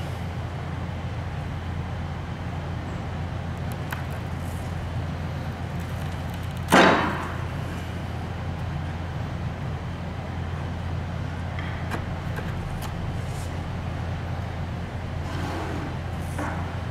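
Steady low machine hum, with one short sharp scrape or knock about seven seconds in.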